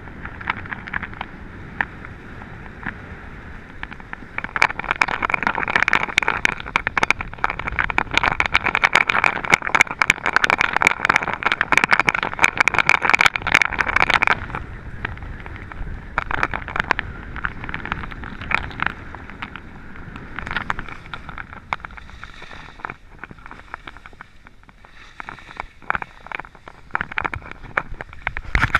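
Skis sliding and scraping over groomed snow, with wind noise on the microphone. The scraping is loudest from about five to fourteen seconds in, then eases to a lighter hiss with scattered clicks.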